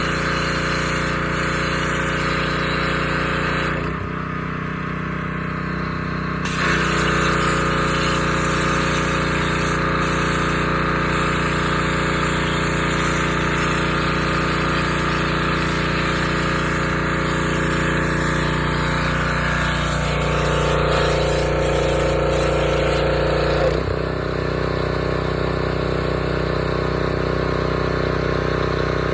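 Gas-engine pressure washer running steadily, with the hiss of the spray over the engine note. The hiss drops out for a couple of seconds about four seconds in, then comes back.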